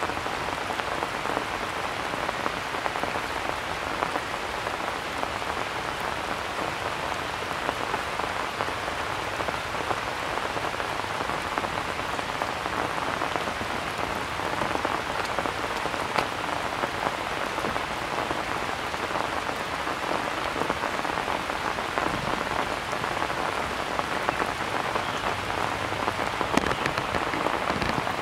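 Steady rain falling on leafy ground cover and stones, an even hiss with scattered ticks of individual drops.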